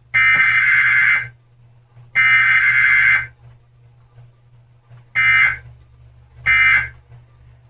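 Emergency Alert System SAME data tones of a weekly test, a harsh buzzing warble. Two bursts of about a second each end the header, then after a gap of about two seconds come two short end-of-message bursts about a second and a half apart, with a third starting right at the end.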